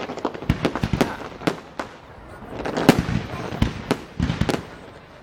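Fireworks display: a rapid, irregular run of bangs and crackles, thickest and loudest about three seconds in and thinning out near the end.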